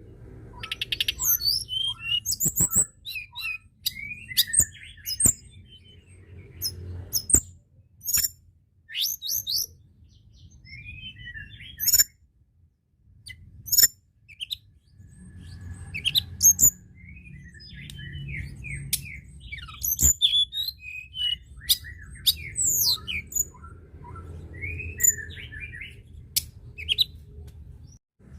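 Tledekan gunung songbird singing a rapid string of short chirps and sweeping high notes, broken by brief pauses. A low rumble sits underneath for long stretches.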